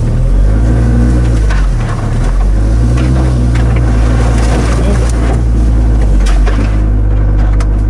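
A 4x4 off-road vehicle's engine heard from on board, revving up and down a few times under throttle changes, then pulling steadily as it climbs a rough trail. Scattered knocks and scrapes come from bumps and from branches brushing the body.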